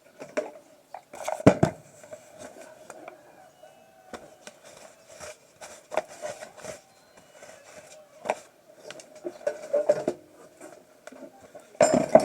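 Metal tools and parts clinking and knocking in an irregular series, with sharp knocks about a second and a half in and near the end, over a faint steady hum.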